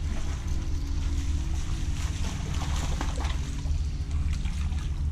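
Hooked bass splashing and thrashing at the water surface on the line, with irregular sharp splashes over a steady low rumble.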